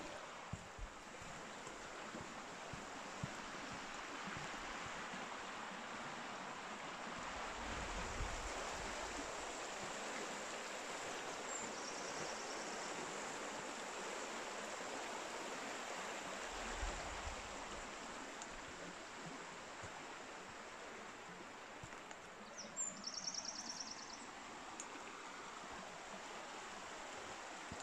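Melendiz river rushing steadily beside the path, an even hiss of flowing water.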